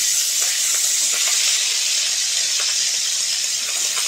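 Garlic paste sizzling in hot oil in a steel kadai: a steady hiss with a few light ticks.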